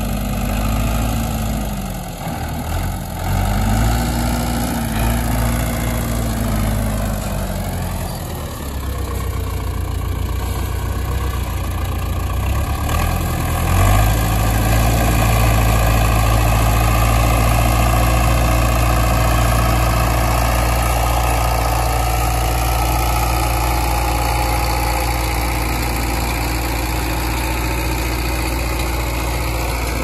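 Belarus MTZ-82 tractor's four-cylinder diesel engine running while the tractor pulls a rotary tiller through soil. The engine note rises and falls over the first several seconds, then holds steady and louder from about halfway through.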